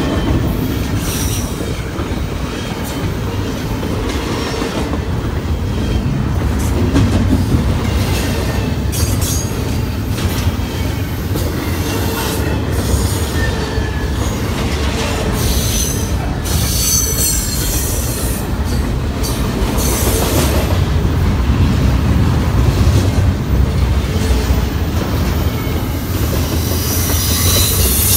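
Double-stack container train's well cars rolling past: a steady rumble of steel wheels on rail, with clicks over the rail joints and a few brief high-pitched wheel squeals.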